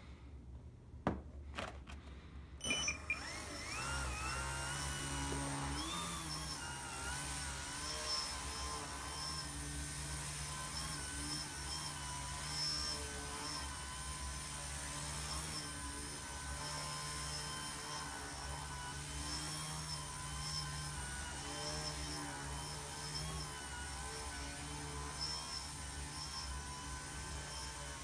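Small electric RC plane's motor and propeller whirring as it hovers, the pitch wavering up and down with constant throttle corrections. A couple of clicks come first, and the motor spools up about three seconds in.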